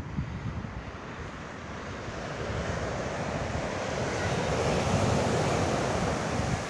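Wind buffeting the phone's microphone over the wash of sea surf. The noise swells to its loudest about five seconds in and eases near the end.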